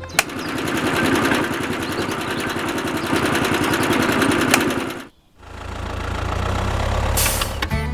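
Small motor running with a rapid, even pulsing. It cuts out about five seconds in, then a lower, steadier hum builds back up.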